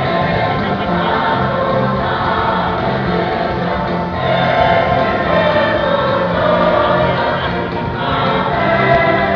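Choir singing a gospel song, swelling louder about halfway through and again near the end.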